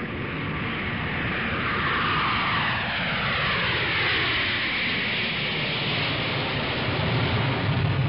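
Jet airliner flying past: a steady rushing engine noise with a sweep that falls in pitch about halfway through, and a deeper rumble building near the end.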